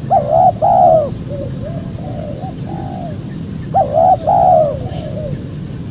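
Spotted doves cooing: a loud phrase of three coos near the start and another about four seconds in, with a fainter dove cooing between them. A low steady hum runs underneath.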